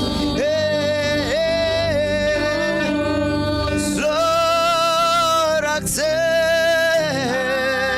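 Live gospel worship music: a voice sings a few long held notes, sliding up into each one, over steady instrumental accompaniment.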